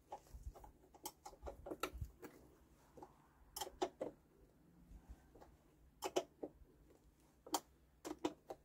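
Steel spanner clicking and clinking on the cover nuts of a Lister diesel engine as they are tightened: faint, short metallic clicks in small irregular clusters.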